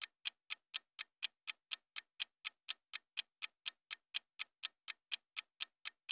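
Countdown timer's ticking sound effect: even clock ticks, about four a second.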